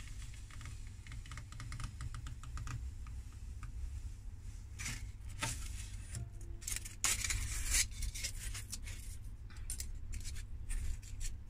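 Polystyrene foam block scraping and clicking against a foam-cutting table as it is turned and lifted off, a quick run of small clicks at first, then a few louder rustling scrapes of foam being handled. A low steady hum sits underneath.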